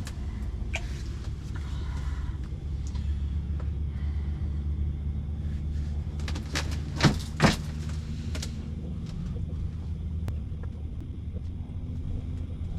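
A steady low rumble with a faint hum under it. Two sharp knocks about half a second apart come a little past the middle, with a few lighter clicks scattered around.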